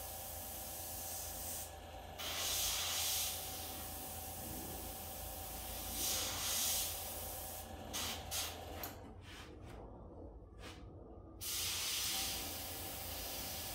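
Airbrush spraying paint: a steady hiss of air that swells and eases as the trigger is worked. About nine seconds in the airflow cuts off, with a few short puffs, and the hiss comes back after a couple of seconds.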